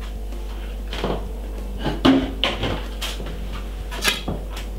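A few short knocks and clatters of kitchen items being handled on a wooden counter, the sharpest about two seconds in.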